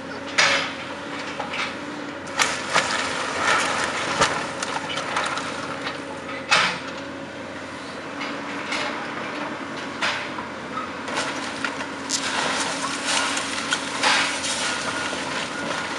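Caterpillar hydraulic excavator demolishing a wood-framed building: timber cracking and splintering and debris crashing down in irregular sharp impacts, with a dense spell of crackling near the end, over the excavator's steady diesel engine.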